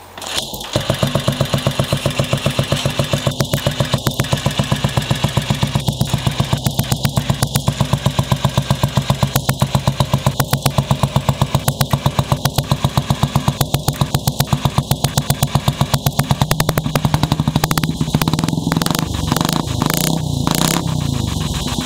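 Junak motorcycle's 350 cc single-cylinder four-stroke engine starting about a second in, then running at a steady, even thump. Near the end its beat turns less regular.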